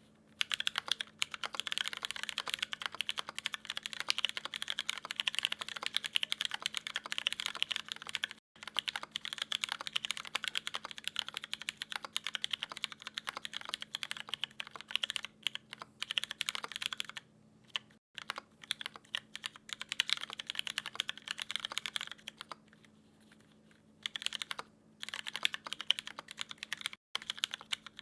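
Continuous fast typing on a DN Alisea mechanical keyboard with tactile Cherry MX Brown switches in an aluminium plate, no foam, and KKB Skidata Neo keycaps, a dense run of keystroke clacks. It breaks off briefly twice, about two-thirds of the way in and again shortly after. A faint steady hum sits underneath.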